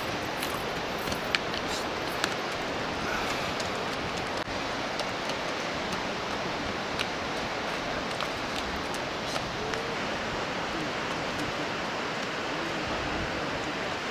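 Steady rushing outdoor noise, with scattered faint clicks and knocks.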